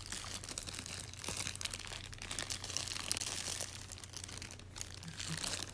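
Clear plastic packaging crinkling as it is pulled off a ring light and its coiled cable: a dense, irregular run of small crackles.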